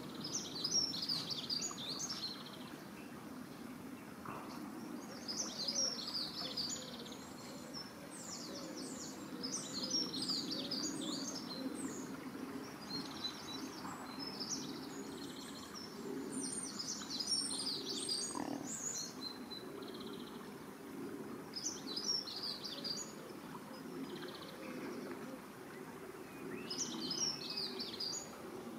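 A small songbird singing short, high, rapid phrases every few seconds, over a steady low background rumble.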